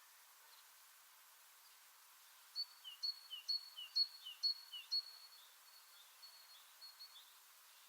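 A songbird singing a run of repeated two-part notes, each a high note followed by a short lower downslurred note, about two a second, over faint steady background hiss. The run starts a few seconds in and fades out near the end.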